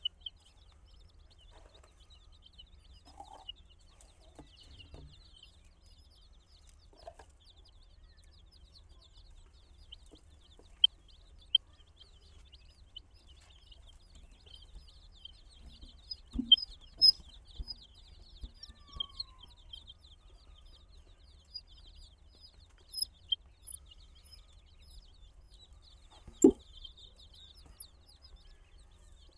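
A flock of baby chicks (domestic chicken chicks) cheeping constantly in a dense chorus of short, high peeps. A few soft thumps break in here and there, the loudest about two-thirds of the way through and near the end.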